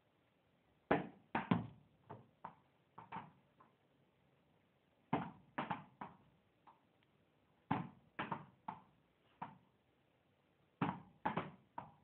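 A ball bouncing hard in a small room during indoor cricket play, in four rounds: each starts with a sharp loud impact followed by three or four weaker bounces, and the rounds come about every two and a half to three seconds.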